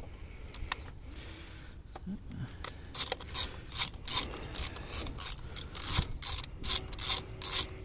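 Ratchet wrench clicking in short back-and-forth strokes, faint at first and then steady at about two or three strokes a second from about three seconds in. It is undoing the ignition coil hold-down bolts on the 2022 Nissan Rogue's engine so that the coils of cylinders 3 and 4 can be swapped to chase a cylinder 3 misfire.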